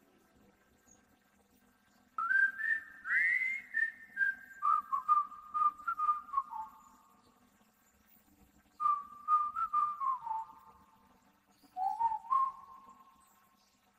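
Background music: a whistled melody in three phrases, the notes sliding from pitch to pitch, over a very faint low accompaniment.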